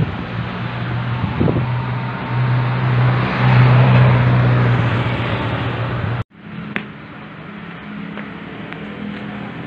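A motor vehicle's engine running steadily amid street noise, growing louder about three to four seconds in. The sound cuts off abruptly about six seconds in, and a quieter steady hum with a single click follows.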